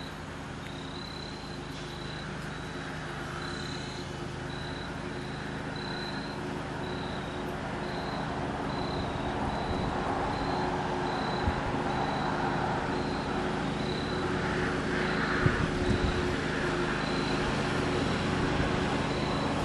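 Lawnmower engine running steadily, slowly getting louder as it comes closer, with wind noise over it.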